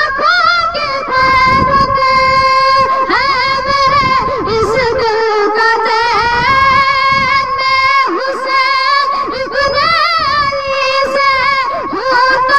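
A boy singing an Urdu devotional song solo into a microphone, holding long notes that waver and bend in ornamented runs.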